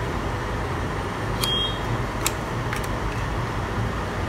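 Cardboard box being opened by hand: a few short clicks and scrapes of the card flap and tab, over a steady low background rumble.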